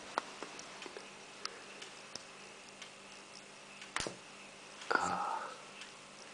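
Magnet ticking irregularly inside a home-built Bedini pulse-motor coil as the coil's pulses kick it around. There is a sharper click about four seconds in and a brief louder rattle about a second later.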